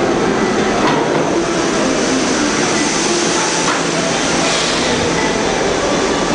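New York subway train running through the station: a loud, steady wash of train and rail noise.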